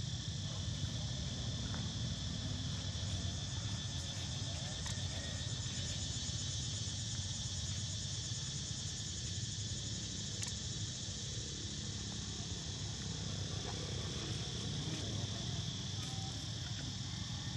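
Steady chorus of insects buzzing continuously at a high pitch, over a low steady rumble.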